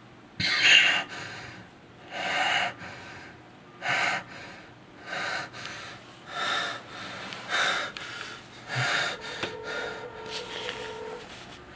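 A man breathing hard in short, gasping breaths, about one a second, the breathing of someone in distress.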